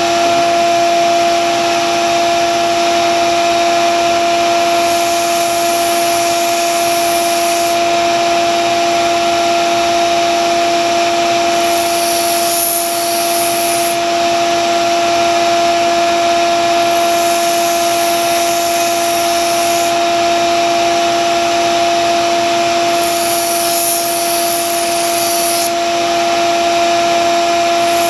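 Grizzly belt sander's motor running with a steady hum while a vintage Wüsthof kitchen knife blade is ground on the belt. The grinding hiss swells on each pass of the blade, about every six seconds, four passes in all.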